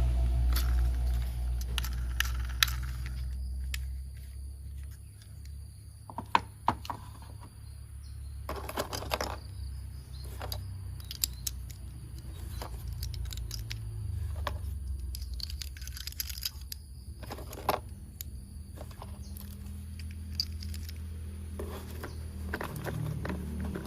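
Plastic toy parts clicking, tapping and rattling as they are handled, in scattered short bursts over a low steady hum.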